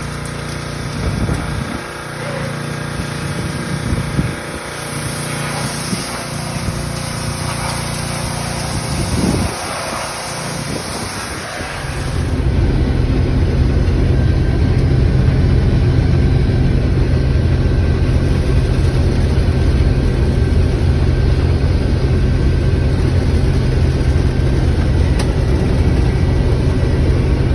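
1660 combine harvester running steadily. About twelve seconds in it becomes louder, with a deep steady hum.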